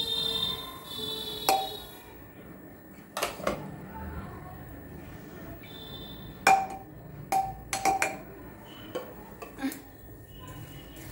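A metal spatula scooping rice and clinking against a steel pressure cooker and serving bowls: a series of sharp, ringing clinks, the loudest about six and a half seconds in. A high steady tone sounds during the first two seconds.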